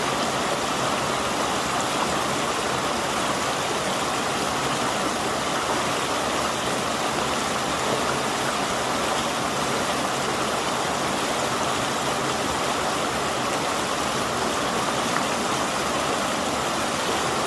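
A river flowing, a steady, unbroken rushing of water.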